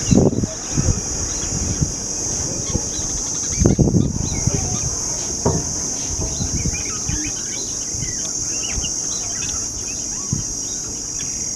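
A steady high insect drone with many short chirps of small birds from the nest, sociable weavers, growing busier from about halfway through. A few low thumps near the start and around four seconds in.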